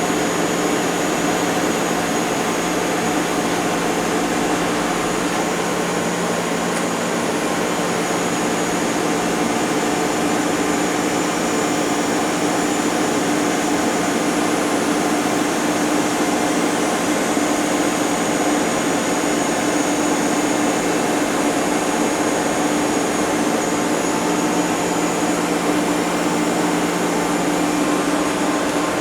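Mori Seiki ZT-1500Y CNC turning center powered up and idling: a steady machine whir with a low hum of two even tones, from its running hydraulic unit.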